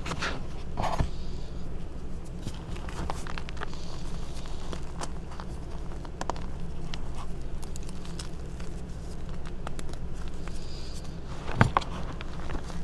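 Hands crushing reformed gym chalk in a tub of loose chalk powder: continuous soft crunching and crumbling, with sharp cracks of chunks breaking near the start and a louder one near the end.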